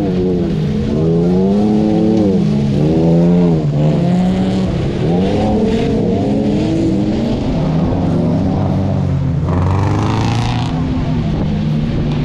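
Folk race cars racing on a muddy dirt track, several engines revving up and falling back again and again as they pass and change gear. A short hissing rush about ten seconds in.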